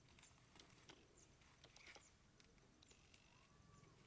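Near silence: faint outdoor ambience with scattered light clicks and a faint short chirp or two.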